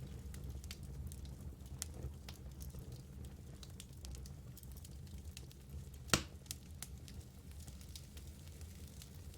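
Wood fire burning in a fireplace, with scattered sharp crackles and one loud pop about six seconds in over a steady low rumble of the flames.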